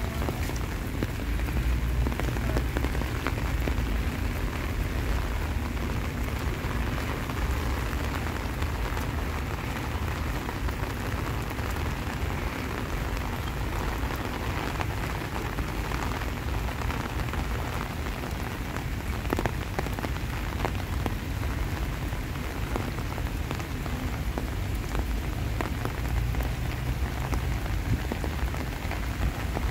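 Steady rain falling and pattering on surfaces, with many single drop hits, over a low rumble.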